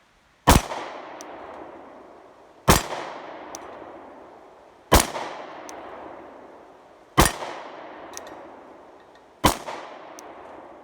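Glock 26 subcompact 9mm pistol firing five single shots, evenly spaced about two seconds apart, each followed by a long echoing tail. A short, faint high tick follows each shot.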